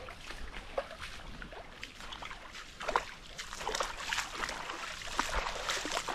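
Irregular splashing and sloshing of shallow water, growing busier about halfway through.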